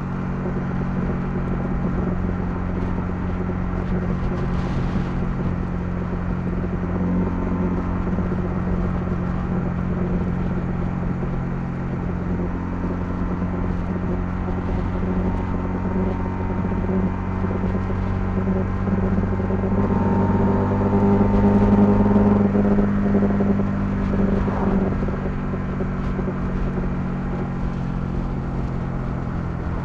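Honda CL250's single-cylinder engine running steadily as the motorcycle rides along. A little past the middle it pulls harder for a few seconds, getting louder and slightly higher, then settles back.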